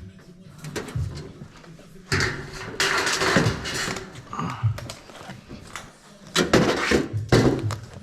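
Light-gauge steel studs and track being handled: metal clattering and scraping in two bursts, the first about two seconds in and the second near the end.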